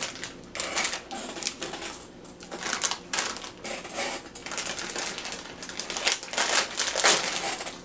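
Plastic packaging crinkling and rustling in irregular bursts as it is handled and unwrapped.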